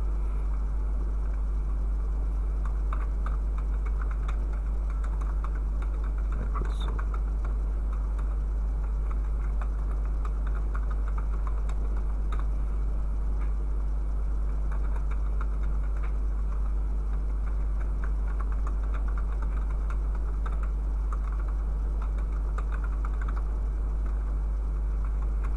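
Computer keyboard typing: quick light key clicks in runs, over a steady low hum.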